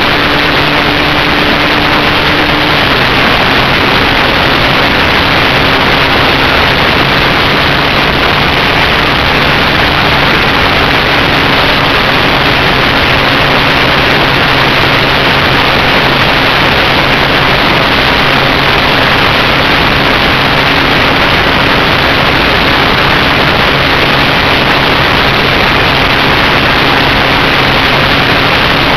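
Motor and propeller of a radio-controlled flying wing running steadily in flight, a loud hum under heavy rushing airflow over the onboard camera's microphone. The hum drops slightly in pitch about three seconds in.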